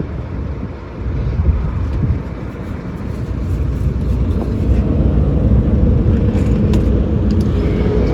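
A heavy engine running with a low rumble, growing louder about a second in and again from about four seconds on.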